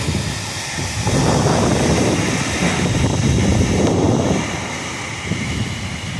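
Storm wind gusting hard with heavy rain, the wind buffeting the microphone in a loud low rumble over the hiss of the rain. The gusts swell about a second in and ease off after about four seconds.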